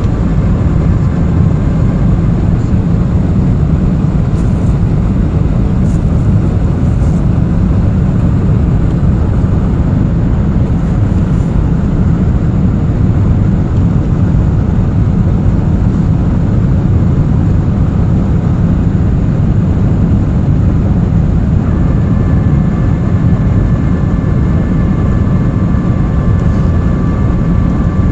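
Boeing 747-400 cabin noise during the climb: a steady, loud low rumble of the engines and rushing air heard inside the passenger cabin. A faint steady whine joins about three-quarters of the way through.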